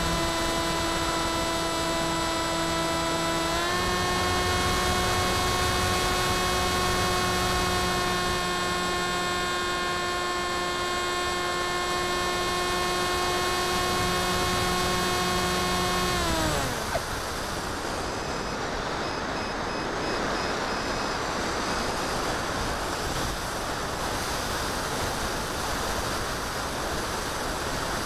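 Electric motor and pusher propeller of an FX-61 Phantom flying wing, heard from the onboard camera as a steady whine. The pitch steps up slightly a few seconds in, then falls away and stops a little past halfway as the throttle is cut, leaving only the rush of wind while the wing glides.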